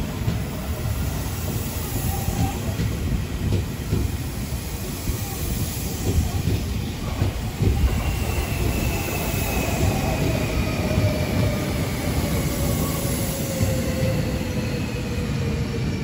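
Tobu 9050 series electric commuter train passing close by: a steady heavy rumble of wheels on the rails with scattered knocks. In the second half, thin high whines fall slowly and steadily in pitch as the train moves off.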